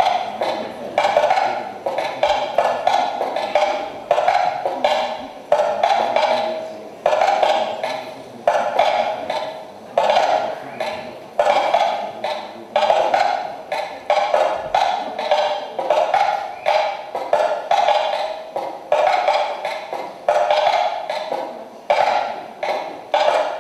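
Percussive knocking in an uneven, continuing pattern: clusters of sharp clicks, each cluster starting hard and fading over about a second, recurring roughly every second and a half, with a mid-pitched ring in them.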